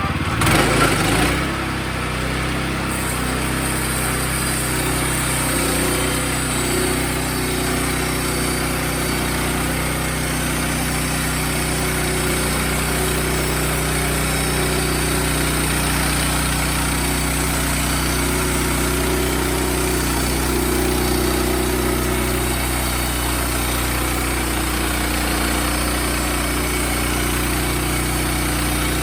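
Wood-Mizer portable sawmill's engine running steadily, with a brief louder noisy surge about a second in.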